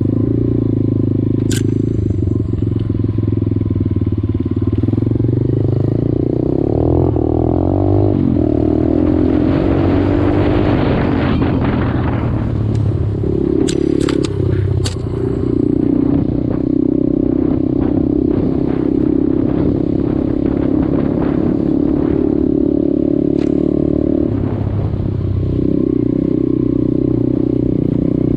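A 125cc dirt bike's engine runs under riding, its revs rising and falling with the throttle, with a rising rev about seven seconds in. A rushing noise comes up for a few seconds in the middle, and a few sharp clicks are heard.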